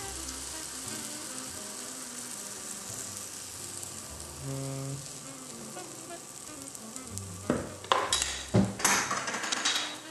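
Hot grease sizzling steadily in a cast iron skillet as pancake batter cooks. Near the end come a few louder rasping bursts of sizzling and stirring.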